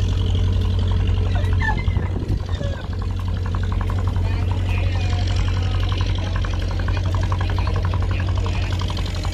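Engine of a small fishing trawler running steadily at low speed: a loud, steady low hum with a fast, even beat.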